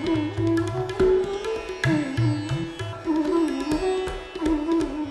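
Background music: a plucked string instrument plays a melody with sliding, bending notes over low drum strokes.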